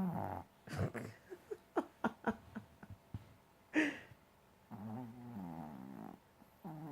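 Teacup Maltese snoring in deep sleep: drawn-out pitched snores at the start, again from about five seconds in and once more near the end. In between comes a run of short clicking sounds and one sharper snort.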